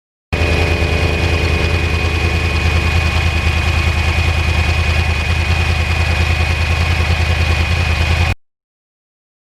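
2009 Yamaha R1 Crossplane's inline-four engine idling steadily, with a thin steady high whine above the engine note. It starts abruptly and cuts off suddenly about eight seconds in.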